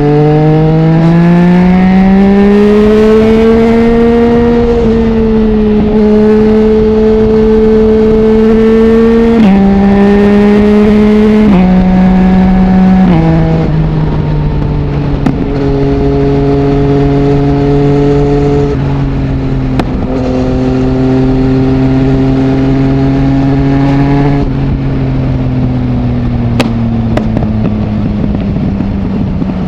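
A Yamaha MT-09's 847 cc three-cylinder engine through an Akrapovic full-system exhaust with no dB killer, heard from the rider's helmet. It rises in pitch under acceleration, holds steady, steps down in pitch a few times, cruises evenly, then falls away as the throttle is rolled off near the end.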